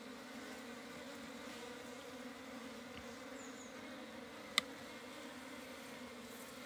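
A colony of local Chinese honeybees humming steadily at a wooden box hive, somewhat stirred up by the hive being opened. A single sharp click about four and a half seconds in.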